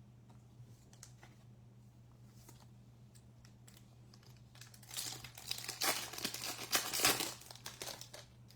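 A baseball card pack's wrapper being torn open and crinkled, a loud crackle that starts about five seconds in and lasts about three seconds. Before it there are only faint light clicks of cards being handled.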